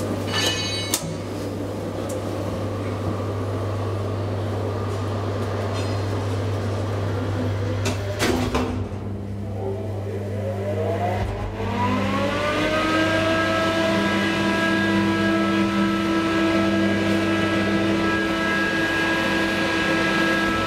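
Traction elevator setting off: a short button beep near the start over a steady hum, a click about eight seconds in, then the drive's whine rises in pitch as the car accelerates and levels off into a steady whine as it travels.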